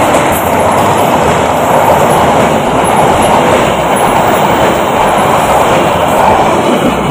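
Passenger train passing at speed at close range: a loud, steady rushing noise of its coaches' wheels running over the rails.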